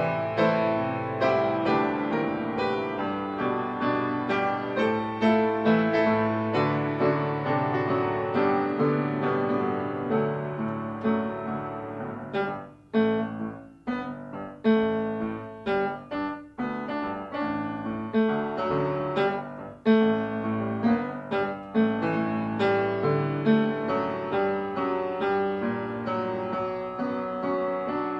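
Solo jazz piano playing a 1920 popular song. About halfway through comes a passage of short, separated chords with brief gaps between them, before the playing runs on smoothly again.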